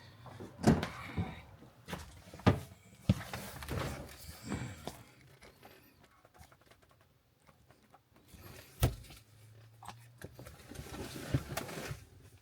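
Metal shifter parts being fitted by hand: a few sharp clicks and knocks, the loudest about a second in, twice more between two and three seconds in, and once near nine seconds, with scraping and rustling in between as the short shifter is worked into place.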